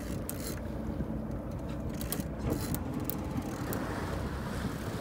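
Fishing boat's engine running with a steady low rumble, mixed with wind on the microphone, with a few short sharp clicks.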